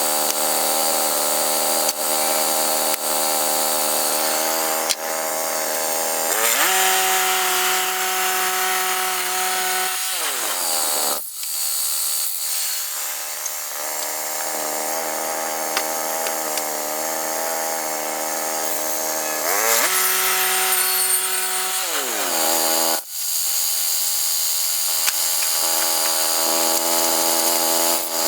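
Woodland Mills HM122 portable band sawmill's petrol engine running hard as the band blade cuts through a pine log, its pitch shifting between steady levels under changing load. Twice, about a third of the way in and again near the end, the engine speed sweeps down sharply and climbs back up.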